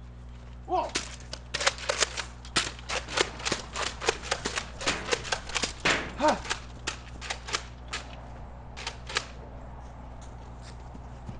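Nerf dart blasters firing in a fast, irregular volley of sharp pops, a few a second, thinning out near the end, with a couple of short cries mixed in.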